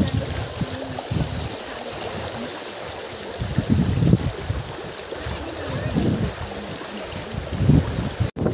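Shallow, fast-flowing stream rushing over a rocky bed in a steady wash of water noise, with irregular low rumbles swelling every second or two.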